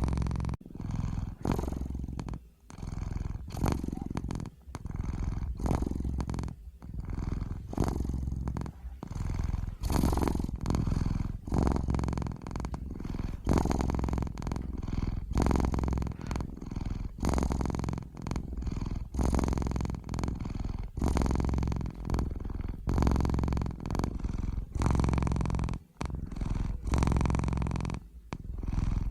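Domestic cat purring close up, a steady low rumble that pulses in breath-length cycles of about a second, with short dips between in-breath and out-breath.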